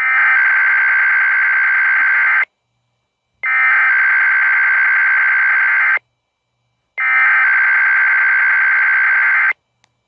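Emergency Alert System SAME header: three identical bursts of warbling digital data tones, each about two and a half seconds long with about a second of silence between them, opening a Required Weekly Test alert.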